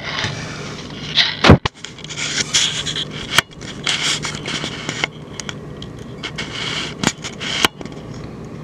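Handling noise from a camera being moved and repositioned: irregular scraping and rubbing with several sharp clicks, the loudest about one and a half seconds in. A faint steady low hum runs underneath.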